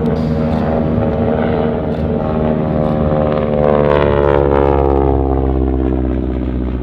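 North American Harvard Mk II's Pratt & Whitney R-1340 Wasp radial engine and propeller on a flypast: loudest about four seconds in, then dropping in pitch as the aircraft goes by.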